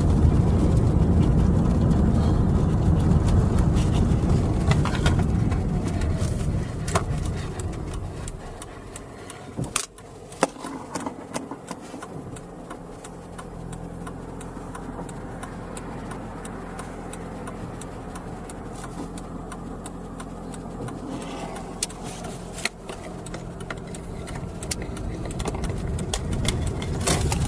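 Car driving, heard from inside the cabin: road and engine noise dies down as the car slows to a stop about eight to ten seconds in, the engine then idles with a steady low hum and a few sharp clicks, and the noise builds again as the car pulls away near the end.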